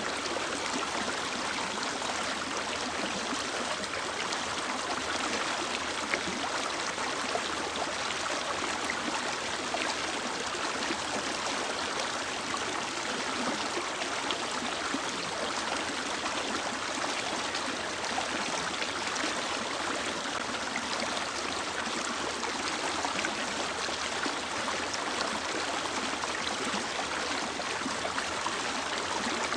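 Mountain river or stream running over rocks: a steady, even rush of flowing water.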